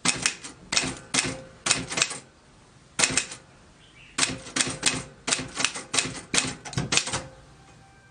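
Typewriter keys being struck in quick, irregular runs of sharp clacks, typing with two short pauses in the first half.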